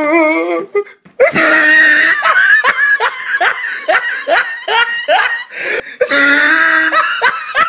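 A woman laughing hard: a wavering laugh, a brief break about a second in, then a long run of short, high laughs, two or three a second.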